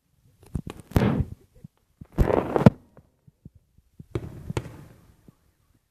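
Fireworks salute shells bursting: several sharp booms, the loudest about one and two seconds in and another near four seconds, each trailing off in a short rumble.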